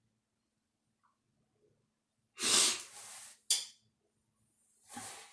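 Loud, sudden bursts of breath from a person's mouth or nose: a strong hissy burst about two and a half seconds in, a short one just after, and another near the end.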